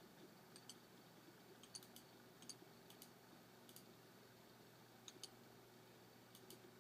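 Near silence with faint, sharp clicks, about a dozen scattered irregularly and often in close pairs.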